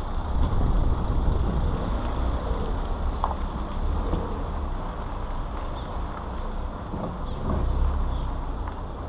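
Lada Granta liftback's suspension giving a few sharp, irregular knocks over a steady low rumble of the moving car and wind. The knock is a suspension fault that shows on turns and over bumps.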